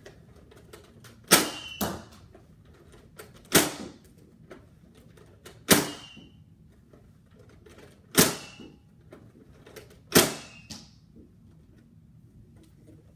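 Nerf Mega Thunderbolt blaster fired five times, about every two seconds: each shot is a sharp spring-plunger bang followed by a brief high whistle from the Mega dart in flight, with fainter clicks of priming and loading between shots.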